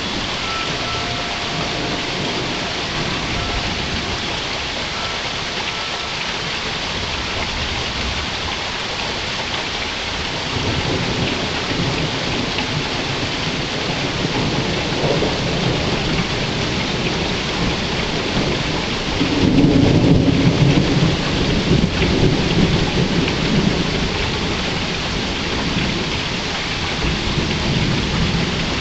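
Steady rain falling, with rolling thunder that builds from about a third of the way in, is loudest about two-thirds through, and keeps rumbling after that.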